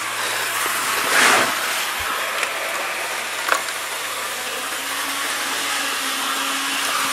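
Model train running on the track: a steady whirring of the locomotive's electric motor and wheels on the rails. A brief louder rush comes about a second in, and a few light clicks follow.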